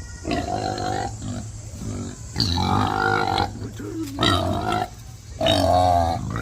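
A farm animal calling repeatedly: four calls of about half a second to a second each, with a wavering pitch.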